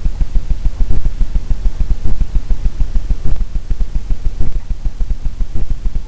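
Steady low rumbling background noise with a fast, uneven flutter, with no distinct clicks or other events standing out.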